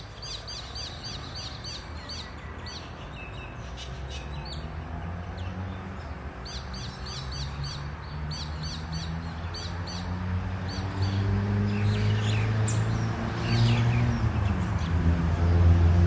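Birds chirping in quick runs of short high notes, a few per second, fading out about ten seconds in. Under them a low hum builds steadily louder through the second half.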